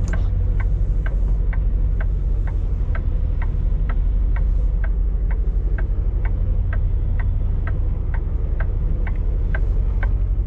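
Turn-signal indicator ticking evenly, a little under three ticks a second, over the steady low drone of the semi truck's diesel engine, heard inside the Peterbilt cab while the truck turns at low speed.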